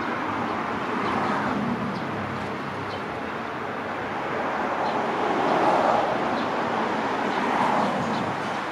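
Road traffic passing, with tyre and engine noise that swells about a second in and again from about four seconds in.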